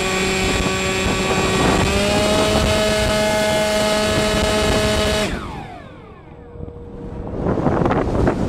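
Brushless electric motor (Grayson Hobby 2217-06, 1500 kV) spinning an 8x4 APC slow-fly propeller, with a steady whine that steps up in pitch about two seconds in. About five seconds in the motor cuts out and winds down in falling pitch: power lost as the battery came loose. Rising wind rush follows as the powerless plane noses into a dive.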